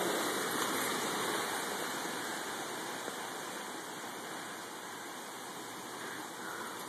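Steady rushing hiss of Hurricane Irene's wind and rain outdoors, easing slowly and growing a little quieter.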